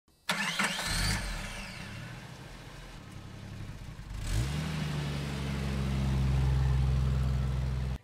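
Engine starting about four seconds in, its pitch rising briefly and then holding at a steady, loud idle; before it, a sudden noisy burst with rising whistling sweeps in the first second.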